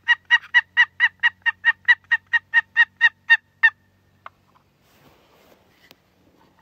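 Turkey call worked by hand, sounding a long run of evenly spaced yelps at about four a second that stops a little under four seconds in, followed by a single click and faint rustling.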